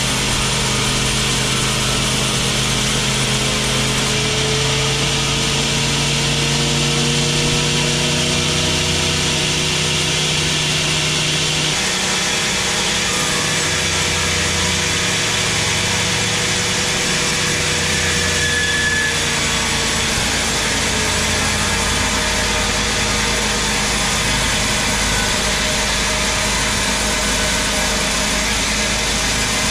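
Large sawmill band saw running and cutting through a big teak log, a loud, steady machine noise. About twelve seconds in, the low hum changes and some of its tones drop out.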